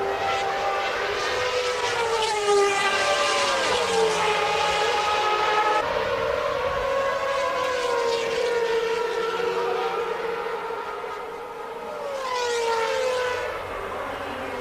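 Several 1992 Formula One cars' high-revving, naturally aspirated 3.5-litre engines running at racing speed. Their high notes overlap and glide up and down through gear changes. The sound fades a little just past the middle, then swells again.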